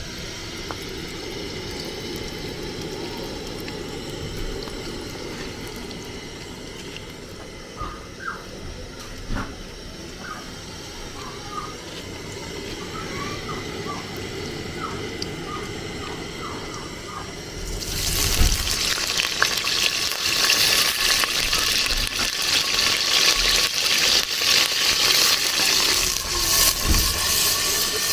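Food cooking in a pot: a steady low rumble with a few faint short chirps, then about two-thirds of the way in a loud, steady hiss suddenly starts and keeps going.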